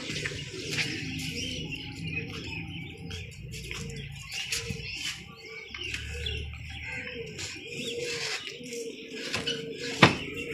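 Domestic pigeons cooing over and over, with wings flapping and rustling. One sharp knock comes about ten seconds in.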